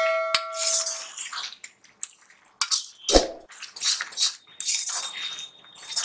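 Steel spatula scraping and stirring thick masala paste frying in oil in a kadai, in repeated strokes about once or twice a second, with a dull knock about three seconds in. A bell-like ring fades out in the first second.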